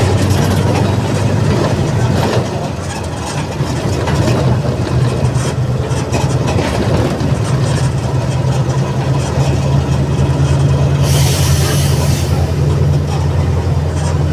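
Diesel engine of a Mercedes-Benz OF 1722M bus running steadily, its pitch shifting slightly about halfway through. A short burst of air hiss about eleven seconds in.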